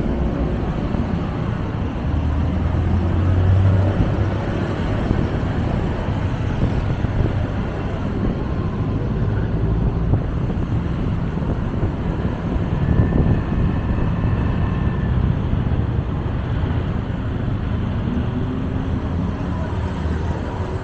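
Motorbike engine running under a passenger on the back seat, with the steady noise of surrounding city traffic; a low engine hum stands out about one to four seconds in.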